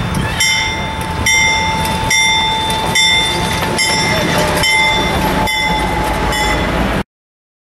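Burlington Northern diesel locomotive passing close with its bell ringing, a strike a little under once a second, over the low rumble of its engine. The sound cuts off abruptly near the end.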